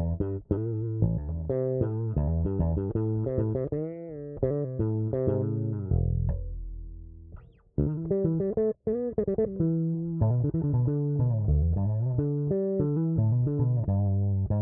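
Handmade 30-inch short-scale electric bass, the Triple D Pony Bass, played as a run of plucked notes, with a held, wavering note a few seconds in. About halfway through, one note rings out and fades almost to nothing before the playing starts again.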